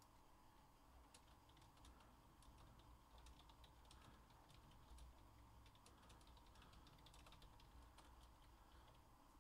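Faint typing on a computer keyboard, a loose run of quick soft clicks over near silence.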